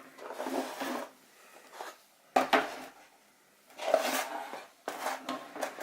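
Handling noise from the tablet and its packaging: a few short knocks and rubbing scrapes in four separate bunches, the sharpest knocks about two and a half and four seconds in.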